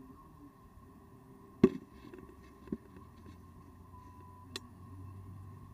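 Quiet background hiss broken by a sharp click about one and a half seconds in, a softer click about a second later, and a faint tick near the end.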